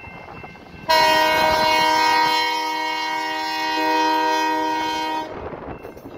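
Freight locomotive air horn sounding one long blast of a several-note chord, starting about a second in and lasting about four seconds, then dying away.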